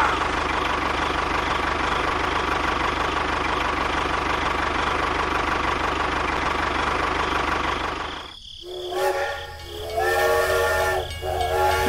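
A steady hiss for about eight seconds. Then, after a brief drop, a steam locomotive's chime whistle blows three blasts, the last still sounding at the end.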